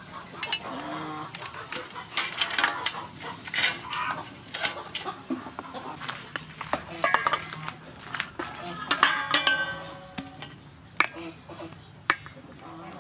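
Repeated clinks and knocks of metal cookware as steamed potato chunks are handled between a metal steamer and a stainless steel bowl, with a wooden spoon knocking against the potatoes and the bowl.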